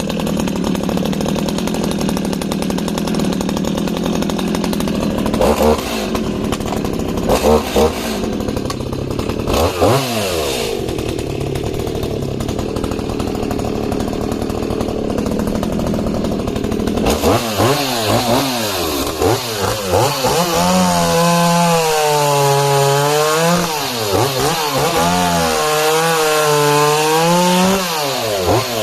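Echo CS-5100 49 cc two-stroke chainsaw running at high revs while cutting discs off a log. About two-thirds of the way in, its pitch starts swinging repeatedly: it sags under load and climbs back.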